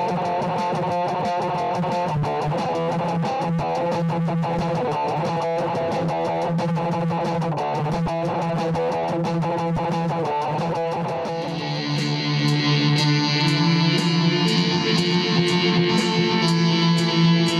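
Instrumental electric guitar music. About eleven seconds in, the track gets louder and fuller, with a steady beat of sharp hits about twice a second.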